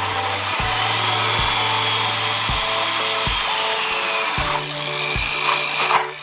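Power drill running under load, its whine sagging in pitch, then stopping abruptly about six seconds in, over background music with a steady beat.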